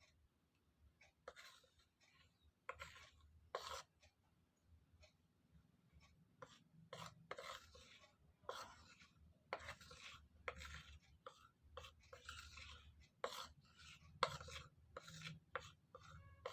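A spoon scooping ginger powder and tipping it into a container: faint, irregular scrapes and light taps, several a second in places.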